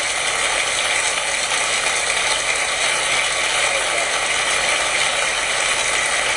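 Studio audience applauding steadily: a dense, continuous patter of many hands clapping.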